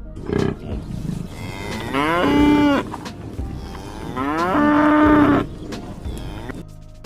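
Cow mooing twice: two long calls, each rising in pitch and then held.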